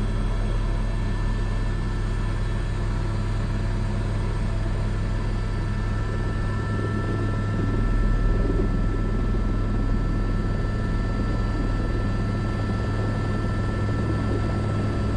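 Airbus AS350 B3 (H125) single-engine turbine helicopter heard from the cockpit in flight: a steady drone of turbine and main rotor with a constant high whine, swelling slightly about eight seconds in.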